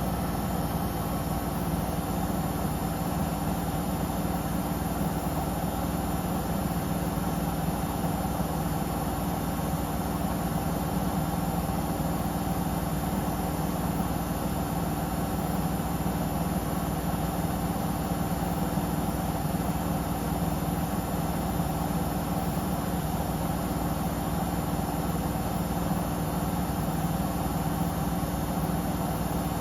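Samsung Eco Bubble digital inverter washing machine running its spin, the drum turning at a steady speed: a steady hum with several fixed tones that hold without change.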